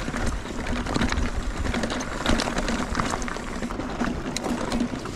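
Mountain bike clattering over loose rocks on a rough single-track descent: a fast mechanical rattle of the bike and its parts, with many small knocks from tyres hitting stones.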